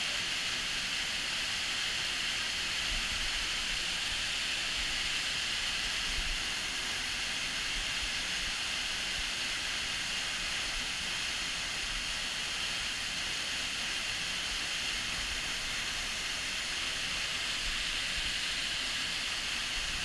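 Waterfall dropping into a rock pool, a steady, hissing rush of falling water.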